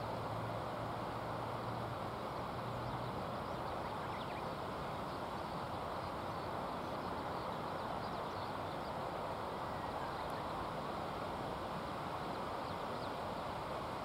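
Steady outdoor background hiss with no clear single source. A low hum fades out about three seconds in, and a few faint, short high chirps come about four seconds in and again near the end.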